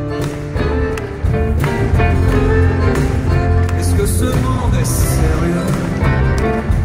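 Live band playing an instrumental passage led by acoustic guitar with drums, the band getting louder about a second in.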